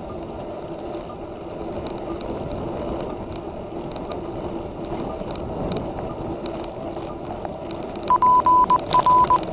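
Steady riding noise, wind and road hiss with a low hum. About 8 seconds in, a loud electronic alert starts beeping at one high pitch in short on-off pulses.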